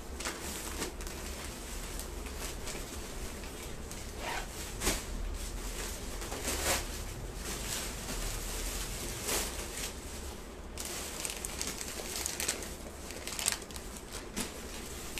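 Clothing fabric rustling and brushing close to the microphone, with scattered soft clicks and knocks over a low steady hum.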